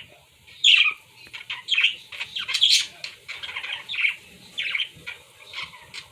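Pet birds squawking and chirping: a string of short, shrill calls about a second apart, some sliding down in pitch.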